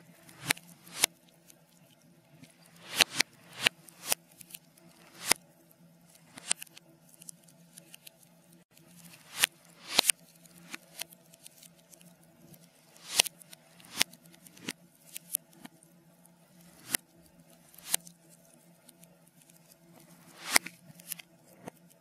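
Log fire crackling, played in reverse: irregular sharp pops and crackles, about one or two a second, over a faint steady low hum.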